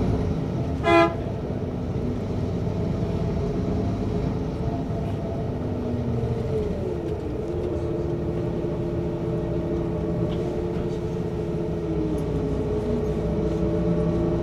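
Steady drone of a bus riding through city traffic, heard from inside, its pitch sliding down twice as it slows. A short car horn toot sounds about a second in.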